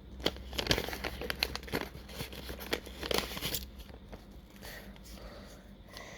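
Paper envelopes and sticker or card packets crinkling and rustling as they are handled. A quick run of sharp crackles comes in the first three seconds or so, then it settles to softer rustling.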